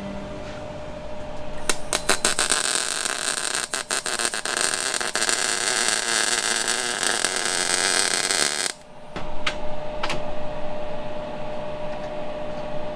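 Welding arc crackling as a cut-down socket is welded onto steel roll cage tubing, starting about two seconds in and cutting off abruptly about nine seconds in, with a couple of short crackling bursts after it. A faint steady hum runs underneath.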